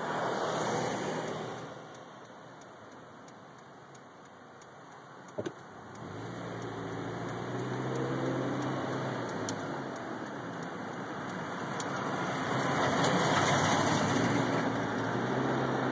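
Car engine and road noise heard from inside a slowly moving car. The noise dips for a few seconds, there is a single sharp click about five seconds in, then a low engine hum builds and grows louder toward the end.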